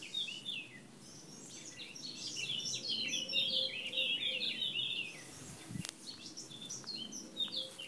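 Small birds chirping and twittering in quick short notes, thickest in the middle of the stretch, with one sharp click a little before six seconds in.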